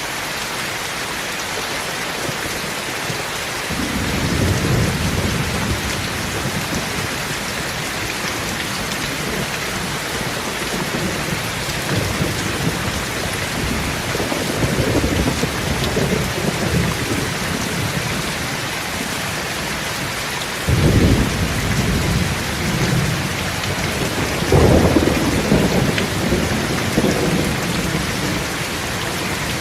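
Steady rain hissing, with low rolls of thunder swelling several times, the strongest starting about four, twenty-one and twenty-five seconds in.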